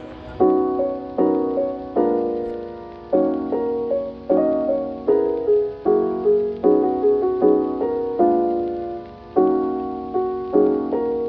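Background music: soft keyboard chords struck one after another, each fading away, with a simple melody on top.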